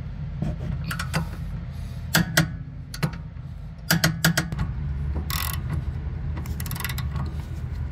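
Torque wrench and socket ratchet working on the bolts of the Tesla's rear adjustable toe arm: sharp metallic clicks, several in quick pairs and short runs, with a brief ratcheting rasp about five seconds in, over a steady low hum.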